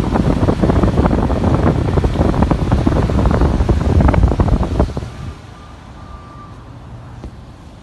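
Wind buffeting the microphone in a loud, rough, gusting rumble that cuts off abruptly about five seconds in, leaving a quieter steady background noise.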